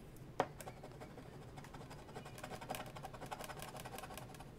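A pen working on a cardboard scratch-off lottery ticket: a sharp tap about half a second in, then a run of faint, quick scratchy ticks as it marks the card.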